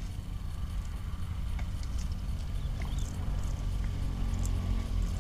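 Low, steady rumble of wind buffeting the microphone, with a few faint scattered ticks.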